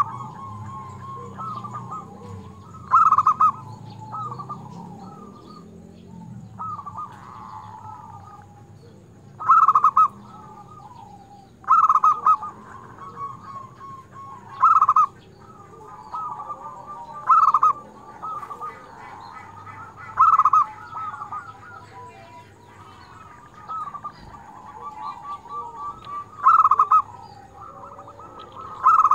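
Zebra dove (perkutut) cooing: a steady run of rolling, trilled coos around 1 kHz, with a louder call about every two to three seconds.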